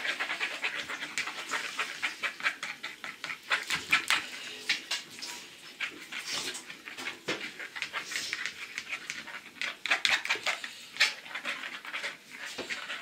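A spoon beating a runny egg, honey and yogurt mixture in a bowl, a quick, steady run of wet clicks and slaps against the bowl.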